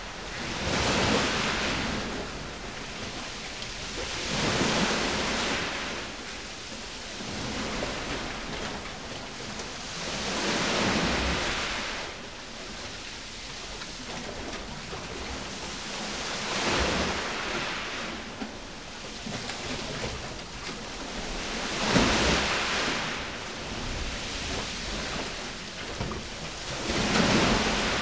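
Sea waves washing into a rocky sea cave, a steady rush of noise that swells and fades every few seconds as each swell comes in.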